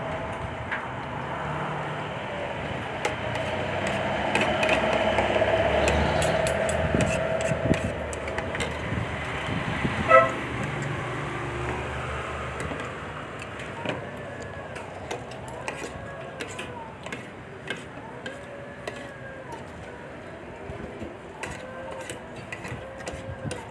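Street traffic: a steady hum with a vehicle swelling past in the first several seconds, then a short car horn toot about ten seconds in.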